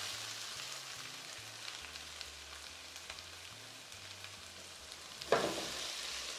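Potatoes browning in olive oil in a frying pan: a steady sizzle with faint crackles, easing slightly. About five seconds in there is a brief louder noise.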